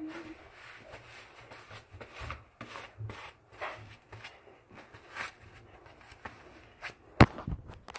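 Handling noises: scattered rubbing, rustling and light clicks, with one sharp knock about seven seconds in.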